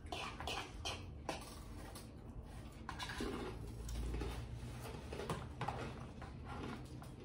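Several people eating: chewing and mouth sounds mixed with light clicks and scrapes of forks against bowls and plates.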